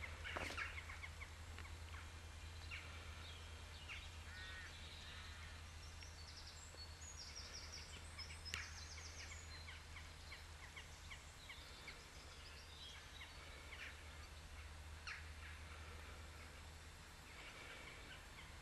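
Faint birdsong: scattered chirps and quick trills from small wild birds over a low, steady background rumble.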